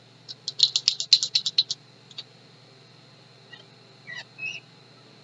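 Marker squeaking on the glass sash of a fume hood as a number is written: a quick run of short high squeaks about a second in, then a few fainter squeaks near the end.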